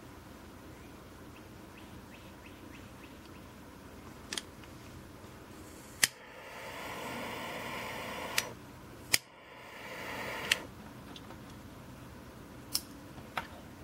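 Revolver-shaped butane jet torch lighter being fired twice: a sharp click of the trigger, then the jet hissing for about two and a half seconds until a click cuts it off, then a second click and a shorter hiss of about a second. A few lighter clicks from the lighter's mechanism come before and after.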